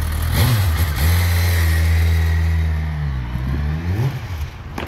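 BMW F800 ST parallel-twin motorcycle engine under way: it revs up, pulls steadily, drops off around three seconds in and picks up again near the end, with wind noise over it.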